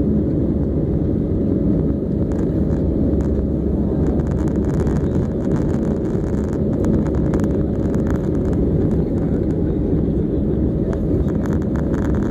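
Steady cabin noise of an Airbus A320-family airliner in flight, heard from a window seat by the wing: the even rush of jet engines and airflow, a low rumble with a faint steady hum above it.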